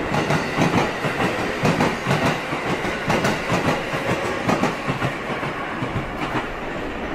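JR Central 313 series electric train rolling slowly over points and rail joints, its wheels clacking irregularly over the running noise. The clacks come thickest in the first five seconds and thin out near the end.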